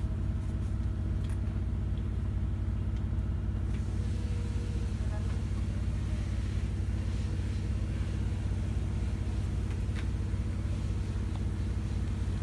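Cargo van's engine running, a steady low drone with a few faint clicks.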